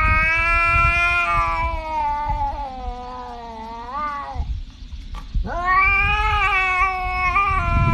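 Tabby cat yowling in two long, drawn-out calls. The first lasts about four seconds and rises in pitch at its end. After a short break, the second starts about five and a half seconds in.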